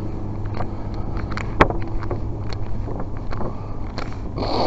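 Steady low mechanical hum with wind on the microphone and scattered faint clicks, one sharp click about one and a half seconds in.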